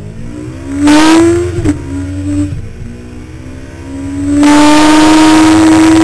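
Honda CBR1100XX Super Blackbird's inline-four engine at full throttle, its pitch climbing through a gear, dropping at a gear shift about a second and a half in, then climbing again and holding high near the end. A loud rush of wind comes over the engine while it is at its highest.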